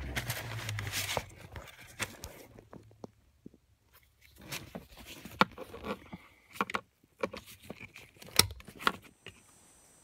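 Rustling handling noise at first, then a series of sharp clicks and short scrapes as a screwdriver tip works at the metal clip holding the airbag module to the back of a steering wheel, pushing it down to release it.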